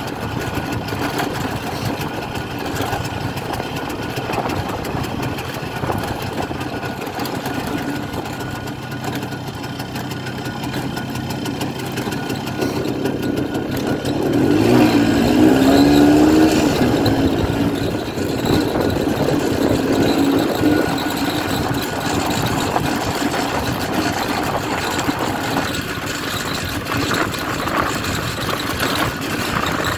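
1967 Pannonia P10's 250 cc single-cylinder two-stroke engine running under way. About halfway through it revs up louder for a few seconds, its pitch rising and wavering, then settles back to a steady run.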